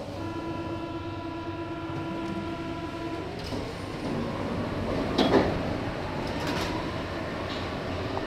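MP 59 rubber-tyred metro train at a station stop: a steady buzzer sounds for about three seconds, the doors shut with a loud knock about five seconds in, and the train pulls away with a faint rising motor whine.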